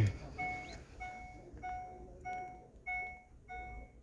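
A Chevrolet's dashboard warning chime sounding with the door open: a short bright ding repeating steadily, about one and a half times a second.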